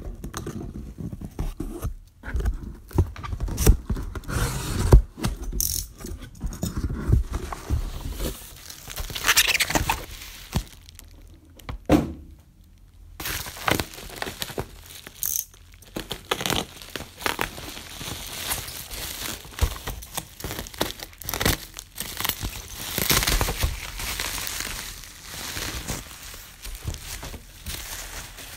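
Close-up unboxing handling: packing tape peeled and torn off a cardboard box and the flaps pulled open, then bubble wrap crinkling and being torn open. Irregular scrapes and crackles run throughout, with a few sharper knocks of the box and its contents.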